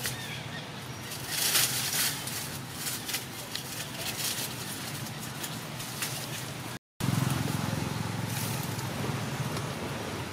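Dry leaves and twigs rustling and crackling as monkeys move through leaf litter, in a run of short crackles that is thickest about a second and a half in. After a brief break, a steady low outdoor rumble takes over.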